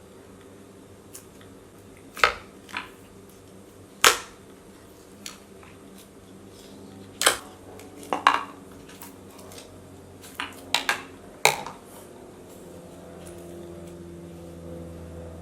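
Thick clear slime being pressed and stretched by hand, letting out sharp bubble pops and clicks at irregular moments, about a dozen in all, with a quick cluster of pops near the end.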